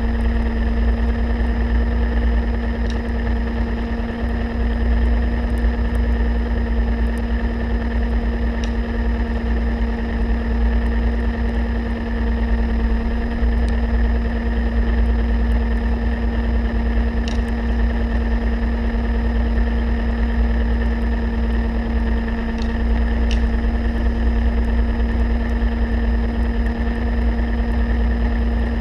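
A motor heard underwater, running steadily: a strong low hum with a constant whine above it. A few faint sharp clicks come now and then.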